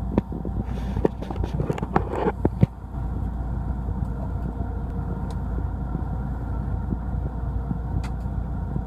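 Fishing boat's engine running with a steady low hum. A few sharp clicks and knocks come in the first two and a half seconds.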